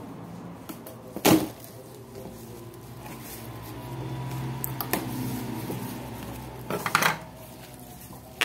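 Scissors cutting through bubble wrap and cardboard, with sharp crinkling bursts of the plastic about a second in and again near the end.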